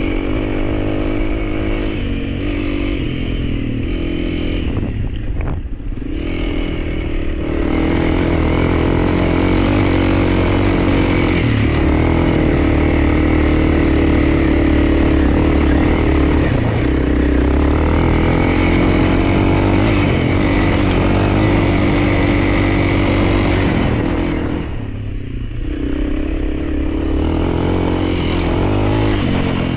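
Honda CRF300L's single-cylinder four-stroke engine running while being ridden. The throttle eases off briefly about five seconds in and again near the end, with the engine pulling harder and louder in between.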